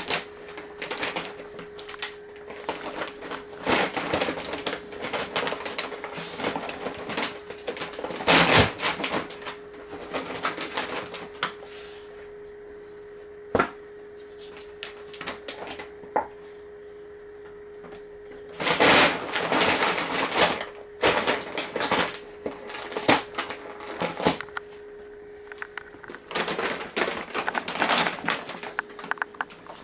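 Paper leaf bag rustling and crinkling in irregular bursts as a cat paws at it, climbs onto it and pushes into it, with a few sharp clicks, over a steady hum.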